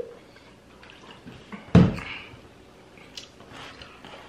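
A person drinking straight from a plastic juice bottle: a few quiet swallows and liquid sounds. A little under two seconds in there is one sharp thump, the bottle set down on the table.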